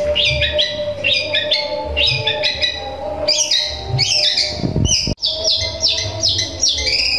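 Caged long-tailed shrike (cendet) singing a rapid, continuous string of short sharp chirps, about four a second, in a mimicry of Eurasian tree sparrow calls. The sound cuts out for an instant about five seconds in.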